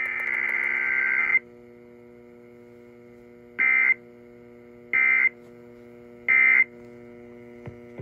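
Emergency Alert System digital data bursts from KDKA's EAS test, heard through an AM radio's speaker: a buzzy burst about a second long, then three short bursts about a second and a third apart, over a steady low hum.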